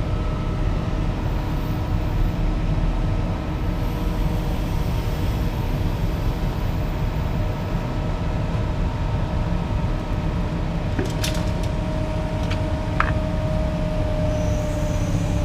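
Vehicle engine running steadily with a low rumble, with a few sharp clicks or knocks about 11 to 13 seconds in and a steady whine coming in around the same time.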